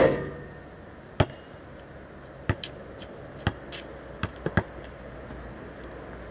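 A basketball hits the hoop with a loud ringing clang, then bounces on the asphalt court. From about two and a half seconds in it is dribbled, seven or so sharp bounces, as the player walks toward the hoop.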